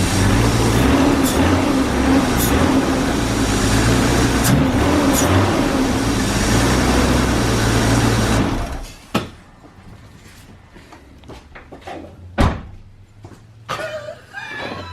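BMW E36 engine running steadily on its first start after a head gasket replacement, then shut off about eight and a half seconds in. A few clicks and a knock follow in the quiet.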